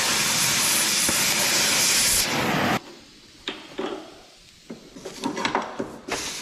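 Oxy-propane cutting torch hissing steadily as it cuts through steel plate, shutting off abruptly a little under three seconds in. A few light knocks and clinks follow.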